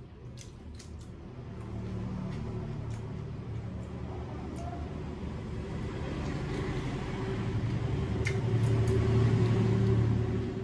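A motor vehicle's engine humming low, growing louder over several seconds and falling away near the end, with a few soft wet clicks of food being eaten by hand.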